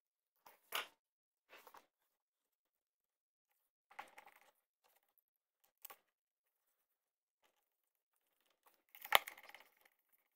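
Sparse handling noises as a hand screwdriver and a strap are worked on a plastic motorcycle saddlebag lid: a few short scrapes and clicks separated by silence, the loudest a sharp knock near the end.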